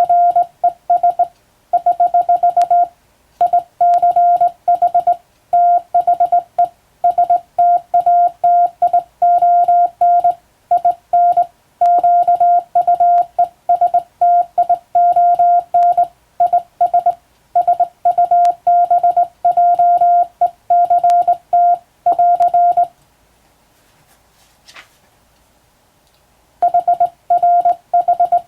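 Hand-sent Morse code (CW) from a telegraph key: a single steady beeping tone keyed into quick dots and dashes, sending English text at practice speed. It breaks off for a few seconds near the end, then the keying resumes.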